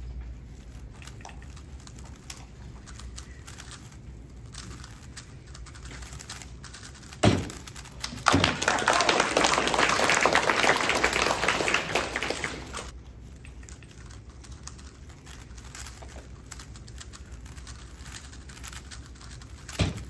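Plastic 3x3 speedcubes clicking and clattering as they are turned fast. About seven and eight seconds in there are two sharp knocks, then a few seconds of much louder, dense clatter before the clicking drops back down.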